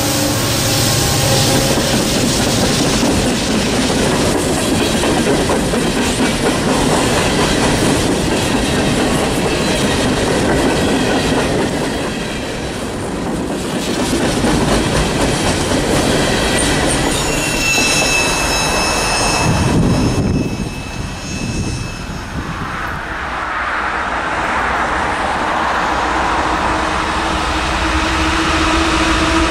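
Two freight trains meeting close by, a ballast train of hopper cars and an intermodal train: a steady rumble of passing cars with wheels clicking over the rail joints, a horn dying away at the very start and a high wheel squeal shortly before the sound cuts away. After that a diesel locomotive approaches from the distance, its engine growing louder.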